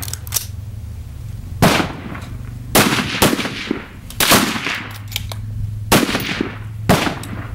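Rifle shots from several competitors along the firing line during a 10-shot rapid-fire string: about six sharp cracks at irregular intervals, some nearer and louder than others, over a steady low hum.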